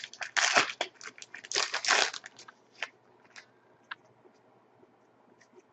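Trading cards being handled and slid against each other as a pack is flipped through: a run of dry rustles for about two seconds, then a few faint clicks.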